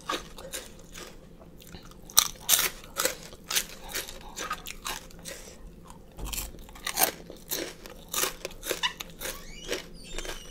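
Close-miked chewing of crunchy pig ears: an uneven run of sharp crunches and bites, close and loud into the microphone.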